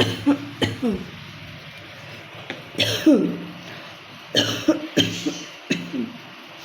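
A woman coughing in fits: a few coughs at the start, one loud cough about three seconds in, and a run of five or six near the end. It is a real cough from a bad cold.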